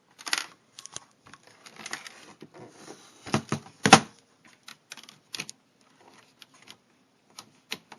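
Irregular plastic clicks and knocks as a phone-jack-style keyboard cable is fitted into the socket on the back of a vintage Outbound Laptop, with the case being handled. The loudest knocks come about three and a half and four seconds in.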